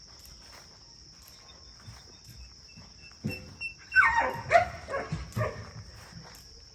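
Farm animals calling out loudly in a burst of downward-bending cries from about three seconds in, stirred up by a bird in their yard. A steady high insect chirr runs underneath.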